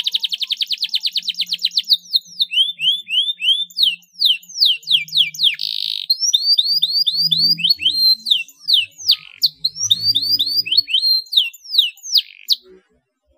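Domestic canary singing: a fast rolling trill, then runs of quick repeated down-slurred whistled notes with a short buzzy note about six seconds in. The song stops shortly before the end.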